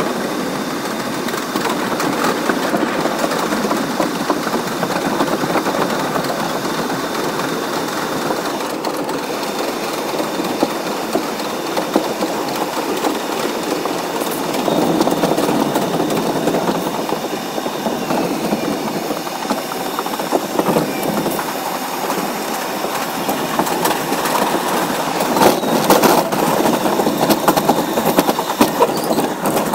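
R62A subway train running on rails: a steady rumble of wheels and running gear with scattered clicks from rail joints and switches. The clicks grow more frequent and a bit louder near the end, as the train heads into a tunnel.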